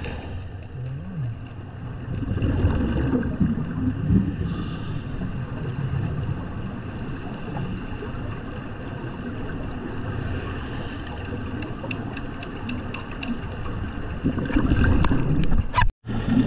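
Scuba diver breathing on a regulator, heard underwater through the camera: a short sharp hiss of an inhale about four seconds in, and low rumbling bursts of exhaled bubbles, loudest about two seconds in and again near the end. A quick run of faint clicks comes shortly before the end.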